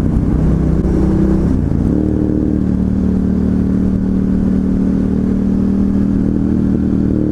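Ducati Hypermotard 1100S's air-cooled L-twin engine running steadily while riding. Its note changes briefly about one and a half seconds in, then holds level.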